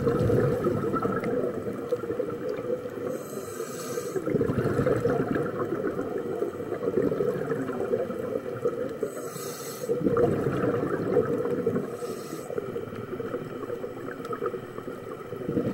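Scuba diver breathing through a regulator underwater: a short hiss on each inhale, three times, each followed by a long bubbling exhale.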